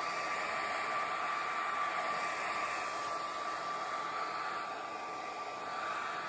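Hand-held hair dryer blowing steadily with a constant high whine over its airflow. The rush swells and eases slightly as the nozzle is swept over a leather saddle to heat the leather and open its pores.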